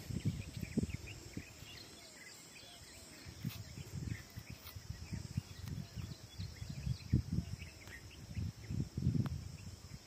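Outdoor ambience: small birds chirping faintly over a steady high insect drone, with irregular low thuds and rustling close to the microphone throughout.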